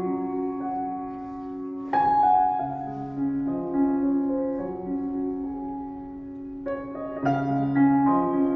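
Background music: soft piano playing slow sustained chords, with new chords struck about two seconds in and again near the end.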